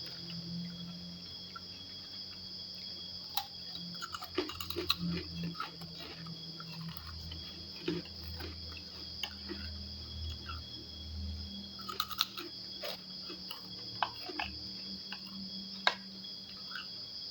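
Eating sounds: scattered clicks, taps and chewing, the sharpest about three, five, twelve and sixteen seconds in, over a steady high chorus of crickets.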